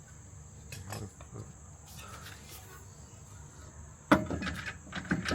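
Makeshift striking tool hitting a part of the intercooler mounting into place instead of a real hammer: a few faint taps, then a quick cluster of sharp, loud strikes about four seconds in.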